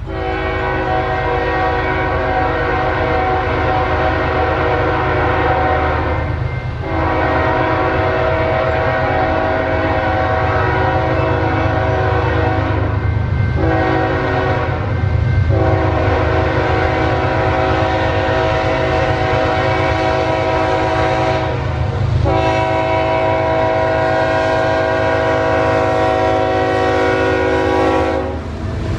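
Freight locomotive air horn sounding the grade-crossing signal as the train approaches: two long blasts, one short, then a final long blast held for several seconds. The diesel locomotives' engine rumble runs underneath.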